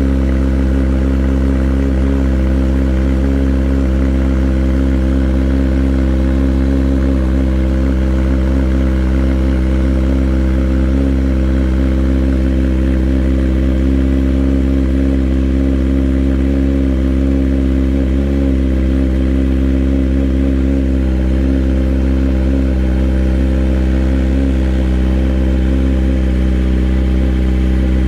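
A 2021 Kawasaki ZX-10R's 998 cc inline-four idles steadily through an aftermarket M4 exhaust. The note is low and even, with no revs.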